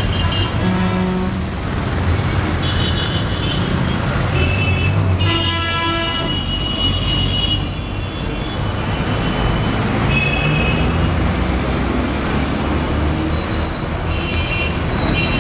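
Heavy city street traffic: bus engines running as buses pass close by, over a steady traffic rumble, with vehicle horns honking again and again. The longest horn blast comes about five seconds in and lasts a couple of seconds.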